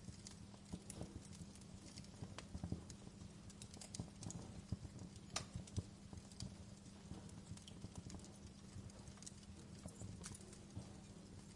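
Wood fire crackling in a stone fireplace: irregular small pops and snaps over a steady low rumble, with one sharper pop a little past the middle.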